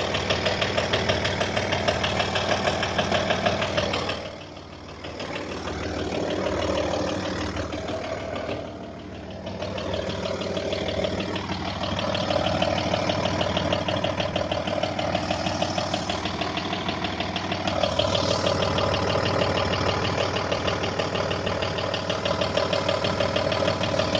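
Audi/VW 2.5 V6 TDI diesel (AKN) running with a rapid, even knocking over the engine note, dropping briefly in level twice. The knock appeared after the control injector (the one with the needle-lift sensor) was replaced, though that injector tests perfectly on the bench; the owner wonders whether the injection pump is failing.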